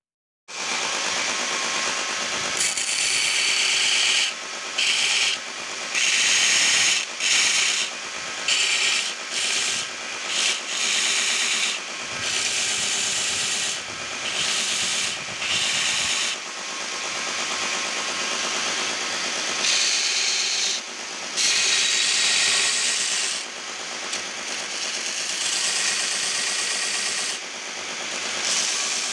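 A belt grinder starts running about half a second in. The wooden handle of a cleaver is pressed against the belt again and again, and each sanding pass of a second or so comes through as a louder, brighter scratchy stretch over the steady running of the machine.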